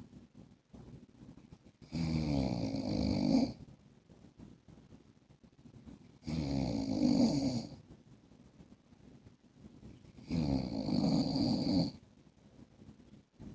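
A man snoring: three snores about four seconds apart, each lasting about a second and a half, with quiet between them.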